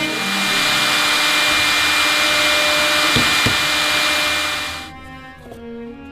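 Overhead router spindle running at high speed as its bit cuts a wooden clock-case piece: a loud, steady hiss with a high whine. It dies away at about five seconds, leaving soft background music.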